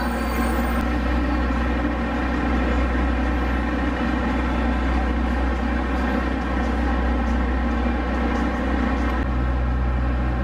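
Diesel engine of a KiRo 47 railcar idling while the train stands at the platform, a steady low hum. About nine seconds in the low note shifts and gets a little stronger.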